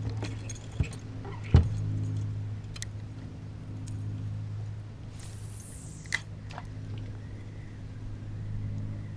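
An engine runs with a steady low hum, and a few sharp knocks sound over it, the loudest about one and a half seconds in.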